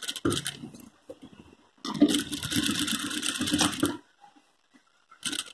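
Table-mounted industrial single-needle lockstitch sewing machine stitching: a few short, stop-start bursts, then a steady run of about two seconds that stops, and a brief burst near the end.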